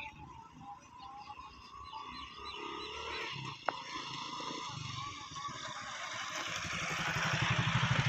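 Birds chirping, with a single sharp click about halfway through. Then a small engine running comes in about two-thirds of the way through and grows steadily louder, as if approaching.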